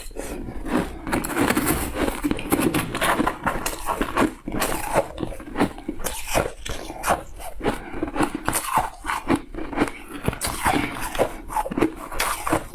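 Close-up crunching and chewing of shaved ice, an irregular run of crisp bites and crackles several times a second.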